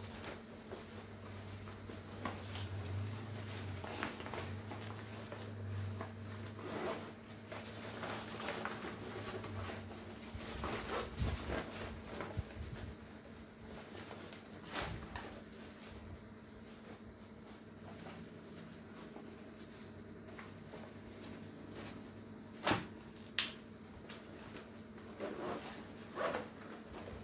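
Rustling of a black nylon Under Armour duffel bag and its plastic wrap as it is handled and opened, in uneven bursts over a faint steady hum, with two sharp clicks less than a second apart near the end.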